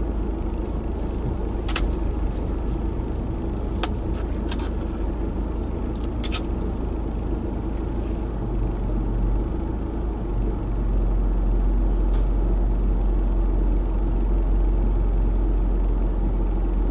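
Car interior while the car is being parked: a steady low engine and road rumble, with a few short clicks in the first half. The low rumble grows louder about eleven seconds in.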